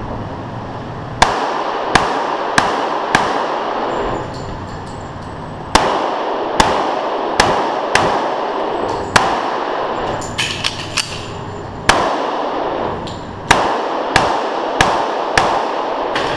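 About fourteen .45 ACP pistol shots from a Springfield Armory 1911 Trophy Match, fired in quick strings of three or four with pauses between, each ringing in the indoor range. A few softer clicks come about ten to eleven seconds in.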